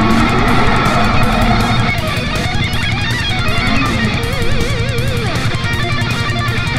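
Rock music: electric guitar with wavering, bent notes over bass guitar and a steady beat.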